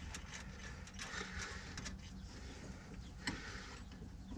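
Faint clicks and light metal scraping as hands turn a nut finger-tight on a Polaris Ranger's new emergency brake cable fitting, over a faint steady hum. One sharper click comes about three seconds in.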